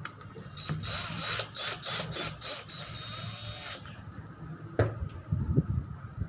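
A small power tool runs in short bursts for about three seconds, its pitch shifting, followed by a sharp knock and a few low thumps.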